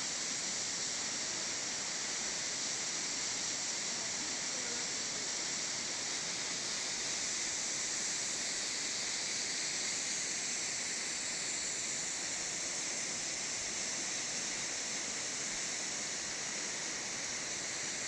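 Steady rushing hiss of Vallaste waterfall, a stream falling about 30 metres into a limestone gorge, heard from the clifftop at an even level throughout.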